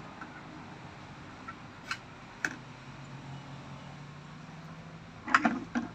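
Large plastic toy building blocks knocking and clicking as they are handled: two light clacks, then a quick cluster of louder knocks near the end, over a low steady hum.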